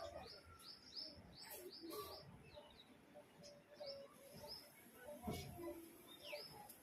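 Faint small-bird chirping: a run of short, high, downward-sliding chirps, about three a second at first, thinning out after a couple of seconds, with one longer falling call near the end.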